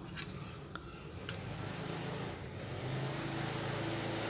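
A few light clicks and rustles from hands handling a plastic drone controller with a copper plate taped to it, over a steady low hum.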